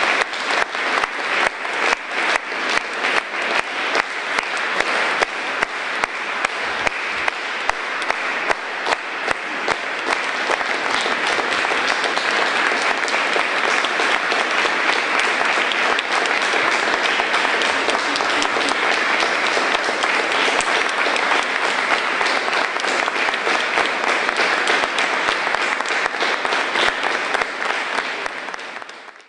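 Audience applauding. Over the first ten seconds or so a loud clap stands out in a regular beat about twice a second, then the clapping evens out into a steady wash, and it fades out near the end.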